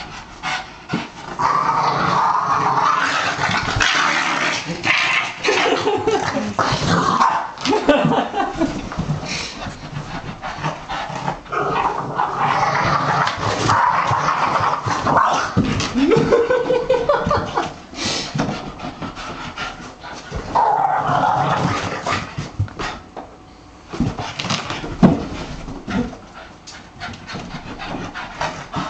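Boston Terrier barking and making weird drawn-out vocal noises, each stretch lasting from about a second to a few seconds, with short sharp sounds in between.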